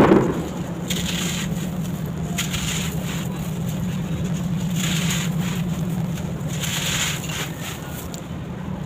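Sand-cement bar crumbling: a sharp hit at the start, then bursts of gritty crushing and crumbling, over a steady low hum.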